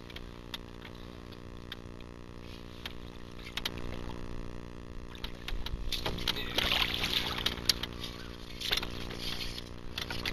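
Water splashing and sloshing as a hooked channel catfish is brought to the boat, over a steady low hum. A few clicks come first; the splashing starts a little past the middle and is loudest in the second half.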